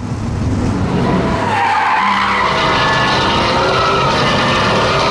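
Sports car driven hard, with the engine at high revs and loud tyre noise. The sound builds over the first second and then holds steady.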